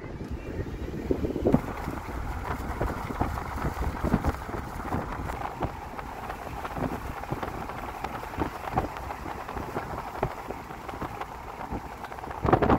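Vehicle driving, heard from inside through a window: a steady low rumble of engine and tyres with wind noise, and frequent small knocks and rattles that get louder near the end.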